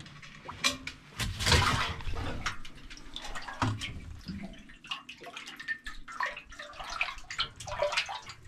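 A flounder splashing into water in a boat's fish box, loudest about a second and a half in, followed by sloshing and dripping water with small knocks.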